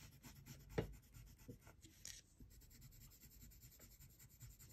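Faint scratching of a colored pencil on paper in quick, short strokes, with a light tap about a second in.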